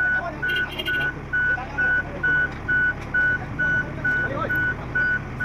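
Vehicle reversing alarm beeping steadily, about two even beeps a second, over the low running of a heavy vehicle's engine.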